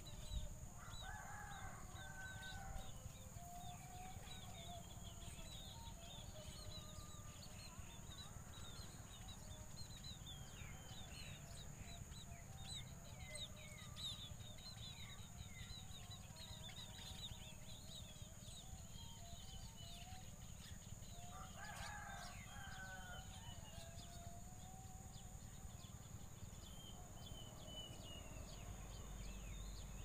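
A rooster crowing twice, about a second in and again about 21 seconds in. Many short, thin high chirps of small birds run throughout, over a steady high whine.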